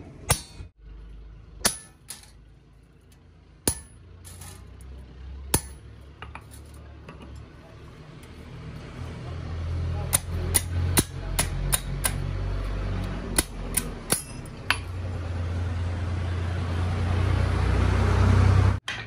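Sharp metallic taps and clinks, a few scattered at first, then a quick run of them about ten to fourteen seconds in, over a low hum that grows louder and cuts off suddenly near the end.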